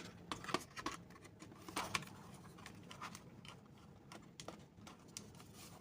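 Irregular light clicks and taps from handling the Asus VivoMini mini PC's case while checking for something loose rattling inside, such as a stray screw.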